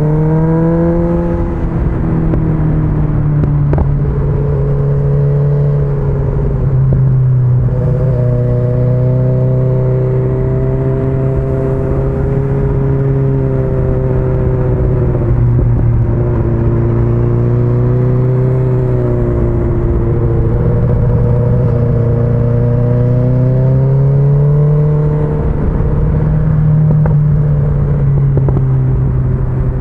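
Sport-touring motorcycle engine running under way, its pitch rising and falling as the throttle is opened and eased through a run of bends, over a low rumble.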